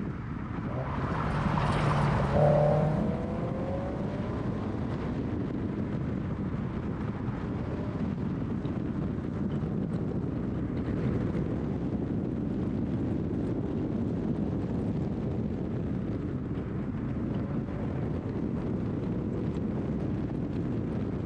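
Scion FR-S flat-four sports car driving steadily along a winding road, engine and tyre noise under a constant rush of wind on the microphone. A louder rushing swell with a brief engine note comes and goes about two seconds in.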